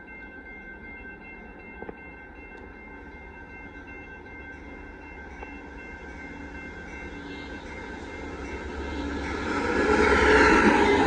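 Amtrak Texas Eagle passenger train approaching a grade crossing. The diesel locomotive's rumble swells from about seven seconds in and is loud by the end as it reaches the crossing. Steady ringing tones from the crossing's warning bell run underneath.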